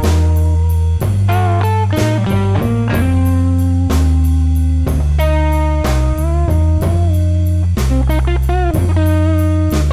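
Background music: electric guitar playing notes with bends over bass and drums, a slow steady beat of about one drum hit a second.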